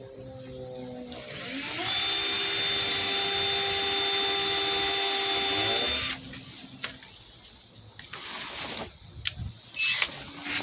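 Cordless drill running for about four seconds: it spins up, holds one steady speed, then stops. A few sharp clicks and knocks follow near the end.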